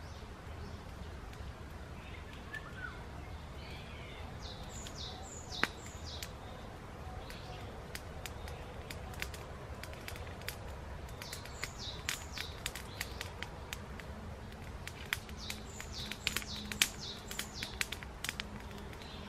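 Woodland birds calling in repeated short falling chirps over a steady outdoor hush, with a wood campfire crackling in sharp snaps and clicks that grow thicker in the second half; one louder snap comes about five and a half seconds in and another near the end.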